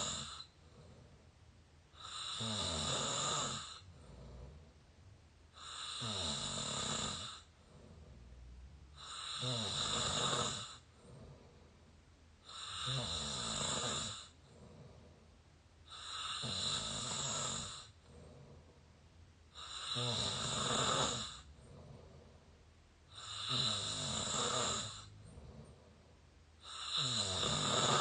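A person snoring through an open mouth, heard up close: eight long snores at an even pace, one about every three and a half seconds, with quieter breathing between.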